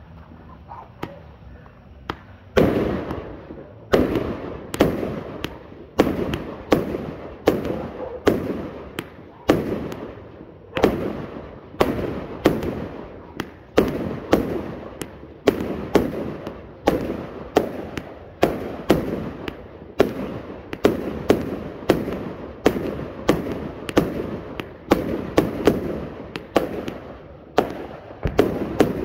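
Slick Willy 100-shot firework repeater cake firing shot after shot, a sharp report about every two-thirds of a second, each with a short crackling tail. The shots start about two and a half seconds in and keep going at a steady pace.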